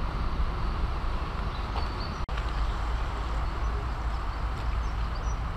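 Steady outdoor background rumble with a few faint high chirps. It drops out for an instant a little over two seconds in.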